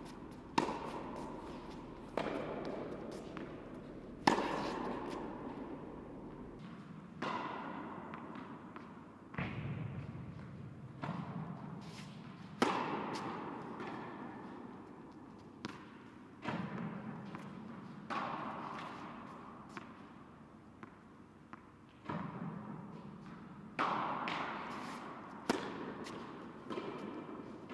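Tennis ball struck by a racket and bouncing on an indoor hard court, a sharp hit every second or two, each one echoing through the large hall.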